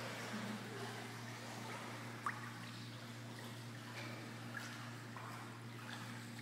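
Pool water lapping and splashing softly as a pit bull puppy paddles across, over a steady low hum.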